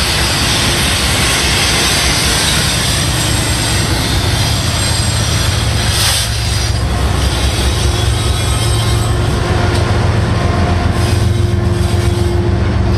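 Freight train passing close by, its last car followed by two trailing BNSF diesel locomotives. Steel wheels rumble and click on the rails, and the deep, steady drone of the locomotives' diesel engines grows stronger about halfway through as they go past.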